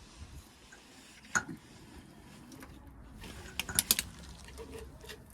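Hand tools clinking against metal: one sharp click about a second and a half in, then a quick cluster of four or five clinks near the four-second mark.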